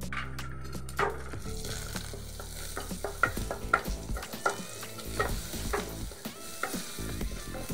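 Tempering spices sizzling in hot oil in a pan: mustard seeds, fenugreek seeds, dried red chillies and curry leaves. A wooden spatula stirs them, its strokes tapping and scraping the pan about every half second from about three seconds in.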